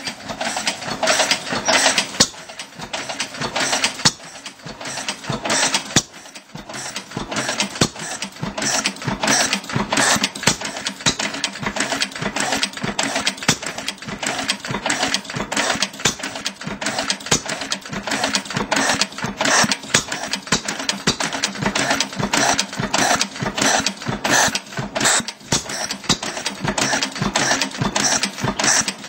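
1911 Langwill Bros 5 HP single-cylinder stationary engine, thought to be a rebadged early Lister L type, running with a rapid, even mechanical clatter. In the first few seconds a louder knock stands out about every two seconds.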